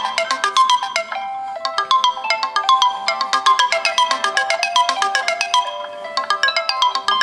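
Several Samsung Galaxy phone alarm tones ringing at once, their quick chiming melodies overlapping, with brief lulls about a second in and again near six seconds in.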